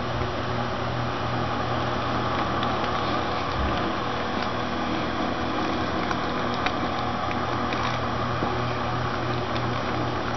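Steady background hum under an even hiss, with a few faint ticks.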